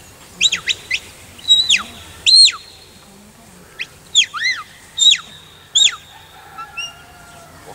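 Sheepdog handler's whistle commands to a working Border Collie: a run of high whistle blasts, each sweeping up and down in pitch or dropping steeply, in two bursts with a pause of about a second near the middle.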